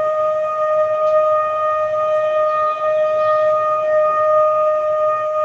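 Background music: a single high note held steady, with overtones.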